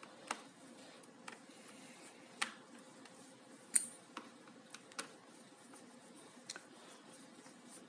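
Scattered light clicks and taps of small hard plastic and metal parts being handled on a laptop, about seven separate clicks with the sharpest one near the middle.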